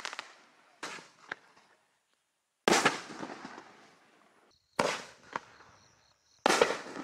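Raccoon Pro Line 5-inch aerial shells going off: a sudden bang about every two seconds, four in all, the first fainter. Each trails off in a rumbling decay, and a smaller crack follows two of them.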